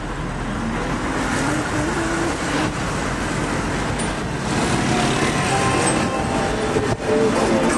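Steady rumble of a car driving, its engine and tyre noise heard from the moving vehicle.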